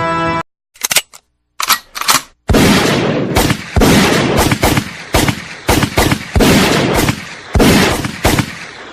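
Gunfire sound effect: a few separate shots, then a rapid string of loud shots, about two to three a second, each ringing out, fading away near the end.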